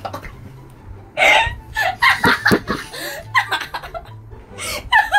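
People laughing in short, gasping bursts that begin about a second in.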